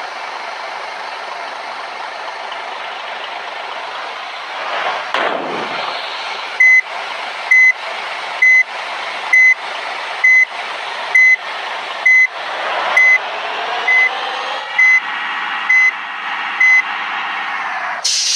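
A large vehicle's reversing alarm beeps twelve times at an even pitch, a little under a second apart, over a diesel engine running steadily. A brief whoosh comes about five seconds in, and the engine's pitch rises near the end as it revs up.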